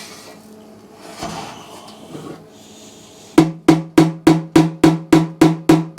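Light, rapid hammer taps on a steel motorcycle fuel tank's repair panel, about three a second, starting a little past halfway, each strike ringing with the tank's hollow tone. He is carefully knocking down a high spot left from pinging the panel back out.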